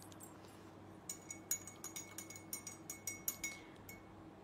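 A teaspoon clinking against a cup while stirring tea: a faint run of light clinks, several a second, each leaving a thin ring. It starts about a second in and stops shortly before the end.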